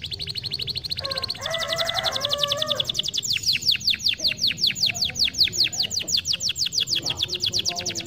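Domestic canary singing a rapid trill. A fine, dense trill changes about a second and a half in to louder, slower notes, each a quick downward sweep, about eight a second.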